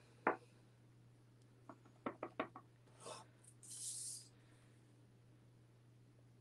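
Soft clicks and taps of a clear acrylic stamp block and ink pad on the craft desk, a quick cluster of taps about two seconds in, then paper sliding across the mat. A steady low hum lies underneath.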